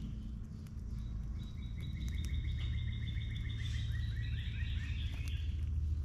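A bird's rapid trill of short, evenly repeated notes, starting about a second in and lasting about four seconds, over a steady low rumble and a few sharp clicks.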